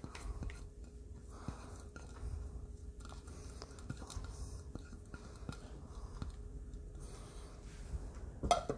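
Faint, scattered soft taps and scrapes of a spoon pushing chopped bell peppers and garlic off a paper plate into a bowl of minced beef, over a low steady hum.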